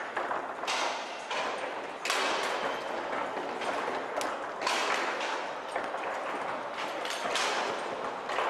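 Foosball being played on a Leonhart table: irregular sharp clacks and knocks as the hard ball is struck by the rod-mounted figures and hits the table walls, with thuds of the rods.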